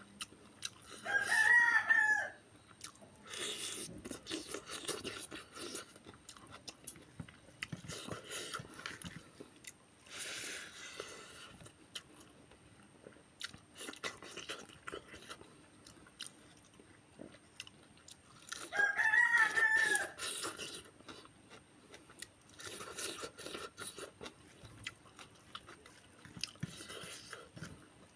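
Close-up chewing and crunching as a person eats, with small bites and clicks throughout. Twice, about a second in and again about two-thirds through, a rooster crows, a call of about a second that rises and falls, louder than the eating.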